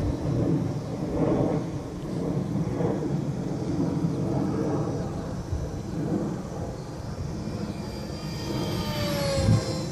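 Electric RC plane flying in wind: a low steady rumble of wind on the microphone, and near the end the plane's motor whine passes by, falling in pitch.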